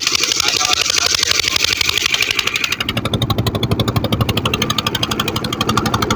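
A fishing launch's engine running steadily under way, with a fast, even pulsing. For about the first three seconds a broad hiss lies over it and its low rumble is weaker, then the rumble comes back fully.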